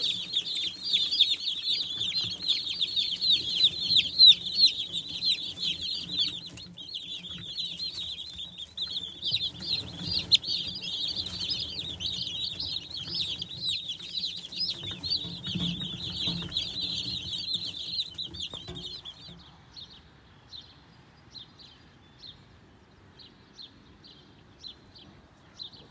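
A brooder full of baby Cornish cross broiler chicks peeping all at once: a dense, continuous chorus of high, shrill peeps. About 19 seconds in the chorus stops, leaving only a few faint scattered chirps.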